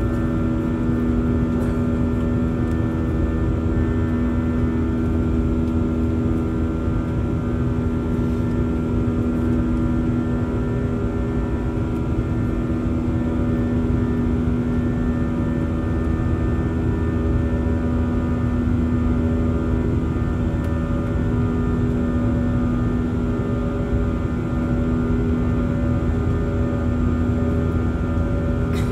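Steady jet engine and airflow noise heard inside an airliner cabin during the climb after takeoff: a constant low rumble with a steady engine hum and several higher steady tones over it.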